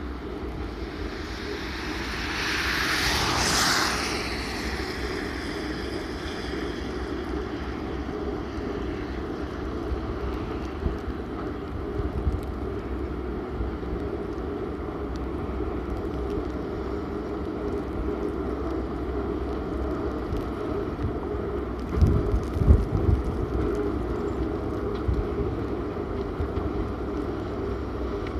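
KU 800/12 bucket-wheel excavator running: a steady low mechanical drone. A rushing noise swells and fades in the first few seconds, and a few low bumps come about three quarters of the way through.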